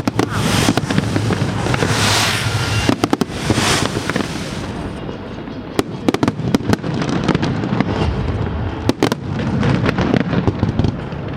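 Fireworks going off in quick succession: sharp bangs and cracks, several in fast clusters, over a continuous rumble and crackle of bursting shells.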